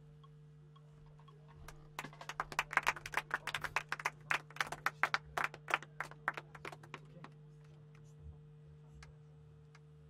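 A small audience clapping after a song ends: scattered individual claps start about two seconds in, thin out after about five seconds, and a couple of last claps come near the end. A steady low hum runs underneath.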